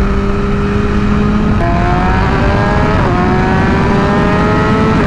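2021 BMW S1000RR's inline-four engine pulling under acceleration, its pitch climbing steadily in each gear and dropping sharply at upshifts about three and five seconds in. Wind rushes over the onboard microphone throughout.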